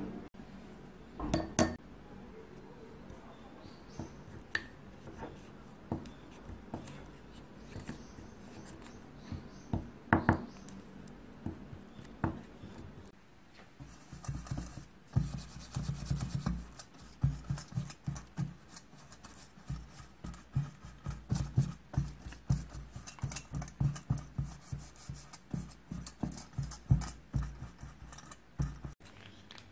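A few scattered clicks of a utensil against a small glass bowl while butter and flour are mixed into a release agent. From about halfway, quick repeated strokes of a silicone pastry brush dabbing and brushing the release agent into the cavities of a financier mould, several strokes a second.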